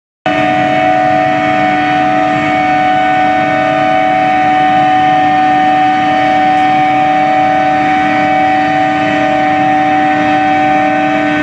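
Billet reheating induction furnace running: a loud, steady hum of several held tones over a constant machinery noise, with no change in pitch or level.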